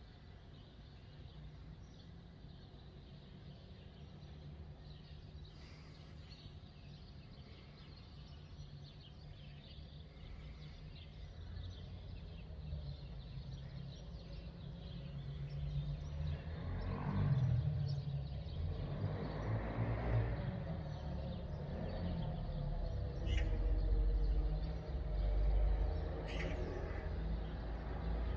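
Outdoor street ambience recorded on a phone: a steady low rumble that grows louder over the second half, with a vehicle passing about two-thirds of the way through and a few short bird chirps near the end.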